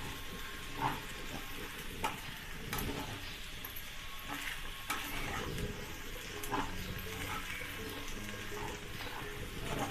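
Metal spatula stirring and scraping moist sabudana (tapioca pearls) mixed with peanut powder around a nonstick frying pan, over a light sizzle from the pan, with a few sharper scrapes of the spatula against the pan.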